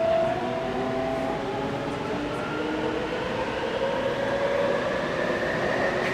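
Electric train running, its motor whine rising steadily in pitch as the train picks up speed, over steady rumble and rolling noise.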